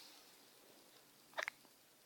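A baby's brief wet mouth smack, a quick double click about one and a half seconds in, over faint room tone.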